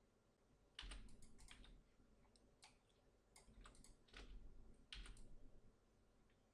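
Faint clicks of a computer keyboard and mouse. They come singly and in short quick runs, scattered through otherwise quiet room tone.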